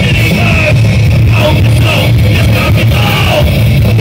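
Loud live heavy rock band playing: distorted electric guitar, bass and drums with shouted vocals over them.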